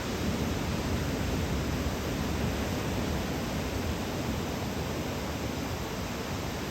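Steady rush of ocean surf breaking and washing on the beach in a typhoon swell, swelling a little in the first few seconds and then easing.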